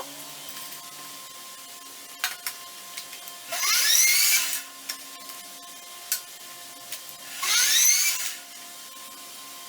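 A small high-speed power tool is revved twice, each time for about a second, with a whine that climbs sharply in pitch. A faint steady hum and a few light clicks run between the two revs.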